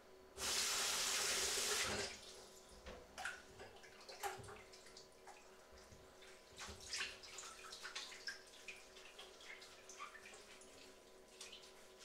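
Kitchen sink tap running in one short gush for about a second and a half, then dishes clinking and knocking in the sink as they are washed up by hand.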